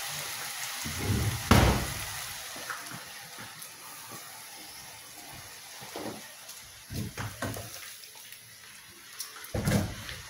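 Noodles frying in a pan, a steady sizzle that fades somewhat in the middle, with several dull knocks and thumps of handling, the loudest about a second and a half in.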